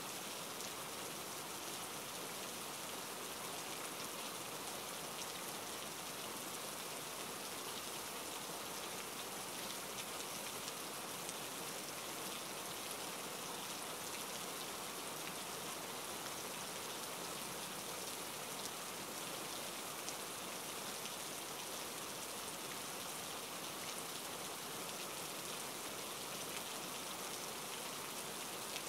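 Steady rain falling: an even hiss with faint scattered ticks of drops, unchanging throughout.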